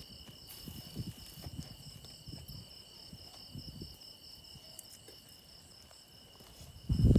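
Insects chirping: a steady high trill with a faster, pulsing chirp above it, over scattered low thumps. A louder low rumble comes in near the end.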